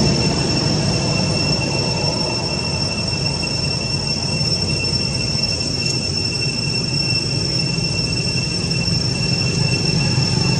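Steady high-pitched drone of insects in two unbroken tones, over a low rumbling noise.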